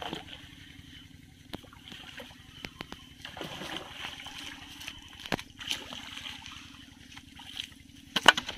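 Hooked snakehead splashing at the pond surface as it is reeled in, with a few scattered sharp clicks and knocks; near the end a louder splash and slap as the fish is lifted out of the water.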